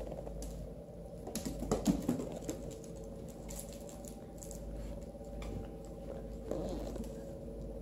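Pocket beagle puppy and kitten scampering and play-wrestling on a hardwood floor: claws clicking and paws pattering, with a louder scuffle about two seconds in and a shorter one near the end.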